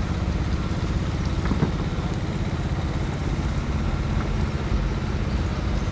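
A motor vehicle's engine idling steadily, with an even hiss of street noise behind it.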